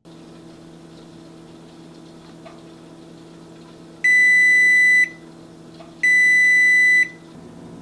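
GE Profile oven's kitchen timer beeping at 0:00, two steady one-second beeps about two seconds apart: the set time has run out. A low steady hum sits underneath.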